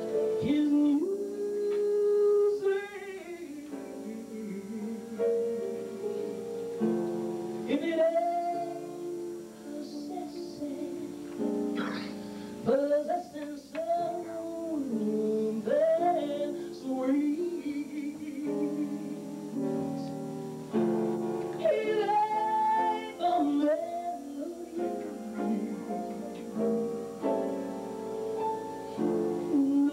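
A woman singing live into a microphone, holding long notes with vibrato, over instrumental accompaniment with sustained chords.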